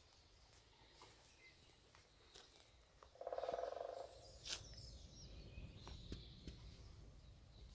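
Quiet spring woodland with faint small birds chirping and tweeting. About three seconds in comes a louder, buzzy, rattling call lasting under a second. In the second half there are soft footsteps and a low rumble as the camera is walked along a paved garden path.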